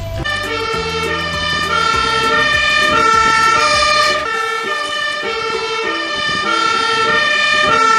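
Fire engine's two-tone siren sounding, switching steadily between a high and a low note about every two-thirds of a second.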